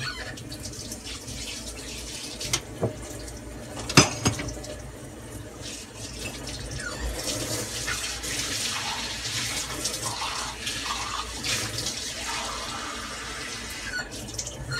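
Water running from a kitchen tap, with a few knocks of utensils in the first four seconds, the loudest about four seconds in; the water hiss sets in about seven seconds in. It is the lukewarm water being drawn for the pitha batter.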